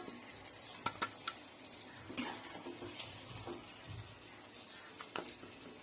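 Faint, scattered clicks and clinks of a spoon against a cooking pot, about eight separate light knocks with pauses between them.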